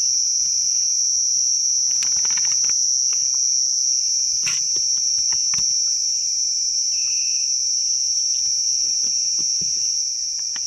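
Steady, high-pitched drone of night insects, a continuous chorus like crickets. Short rustles and light clicks from handling a food pouch and a plastic water bottle sit over it.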